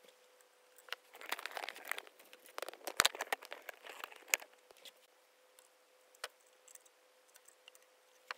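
Handling noise at a workbench: rustling, crinkling and clicks as small items and pliers are moved about, in two busy bursts in the first half, with a sharp knock about three seconds in and a few single clicks later. A faint steady hum sits underneath.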